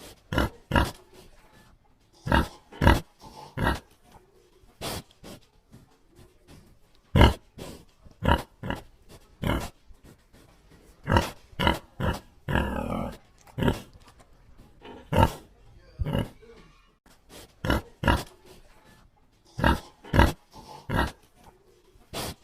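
A pig grunting: short grunts, mostly in twos and threes with pauses between, and one longer, rougher grunt about halfway through.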